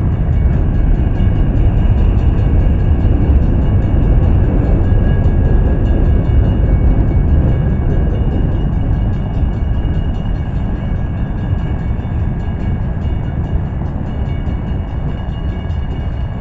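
Freight cars of a mixed freight train rolling past at a grade crossing: a steady rumble of steel wheels on rail, easing off a little over the last several seconds.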